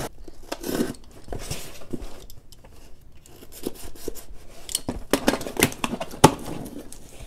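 Utility knife slitting the packing tape on a cardboard box, then the box being handled and its flaps pulled open: irregular scrapes, scratches and taps of cardboard, with a sharp click about six seconds in.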